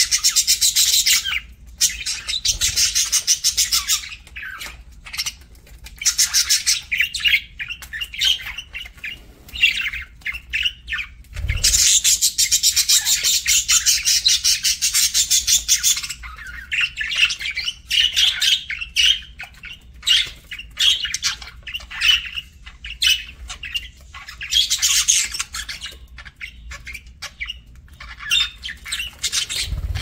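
A flock of budgerigars chirping and chattering: rapid, high trains of calls in loud bursts of a few seconds, with sparser chirps between them.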